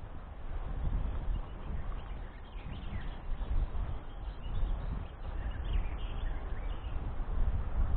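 Wind buffeting the microphone in a gusty, rumbling rush, with a few faint bird chirps about a third of the way in and again past the middle.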